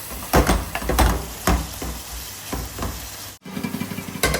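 Curry frying in a pot with a sizzle, while a spoon knocks and scrapes against the pot several times as it is stirred.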